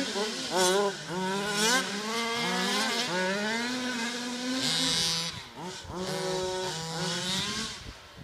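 The 30.5 cc full-mod Baja-type two-stroke engine of a Losi 5ive-T 1/5-scale RC truck being driven hard. It revs up and back down repeatedly, about once a second, as the throttle is worked.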